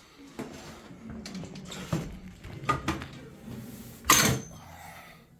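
Handling noises: scattered clicks and short rattles, with one loud clatter about four seconds in.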